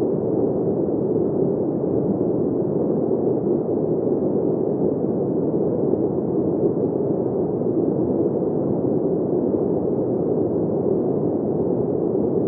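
Steady wind sound: an even, low rushing noise with no gusts or breaks.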